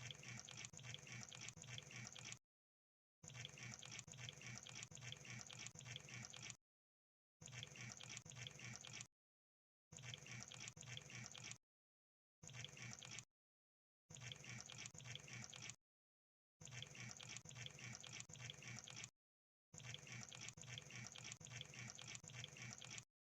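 Crab sound effect: faint, dense clicking and crackling in eight bursts of one to three seconds each, separated by short dead silences.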